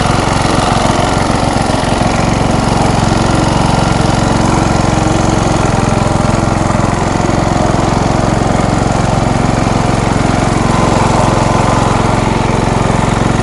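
MTD riding lawn mower engine running loud and steady at high speed under load.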